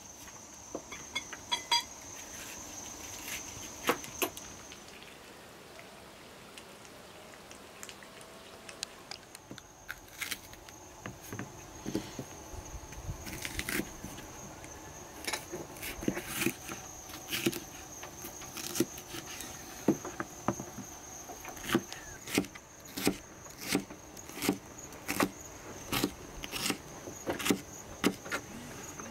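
Sharp knocks, scattered at first, then settling into a fairly even rhythm of about two a second, over a steady high insect chirring that drops out for a few seconds about five seconds in.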